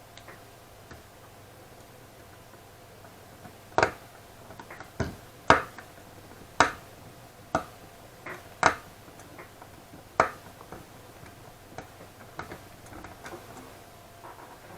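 Sharp, irregular clicks and light knocks of small hard parts and tools being handled during graphics-card disassembly, the loudest coming between about four and ten seconds in, with a faint steady hum underneath.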